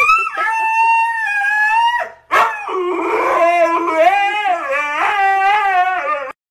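Husky howling: one long held howl of about two seconds, then after a brief break a longer howl whose pitch wavers up and down, ending abruptly shortly before the end.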